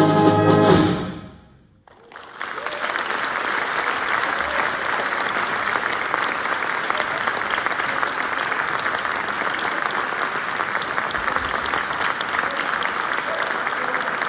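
A concert band's closing chord, held and released about a second in, its ring dying away in the hall; after a brief silence, the audience breaks into steady applause.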